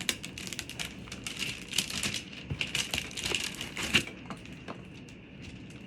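Packaging being handled: a quick run of crinkling, rustling and small clicks, thinning out after about four seconds.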